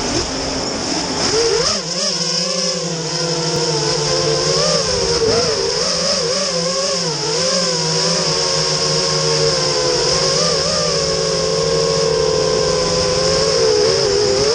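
FPV racing quadcopter's brushless motors and propellers whining, several close pitches wavering up and down together as the throttle changes, over a steady high hiss.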